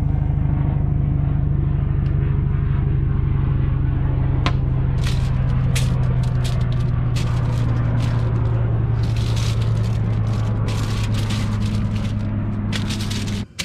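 An engine running steadily with a low drone, which cuts off suddenly near the end. Over it, from about four seconds in, aluminium foil crinkles and crackles as a fish is handled and turned on it.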